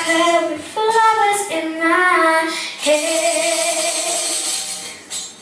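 Young girl singing solo into a handheld microphone with backing music, finishing the last line on a long held note that fades out near the end.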